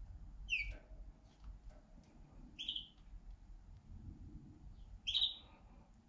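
Canary calling: three short chirps about two seconds apart, each sliding down in pitch.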